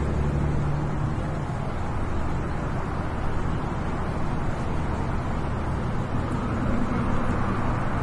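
Road traffic: a motor vehicle's engine hum close by fades out about a second in, leaving a steady wash of traffic noise.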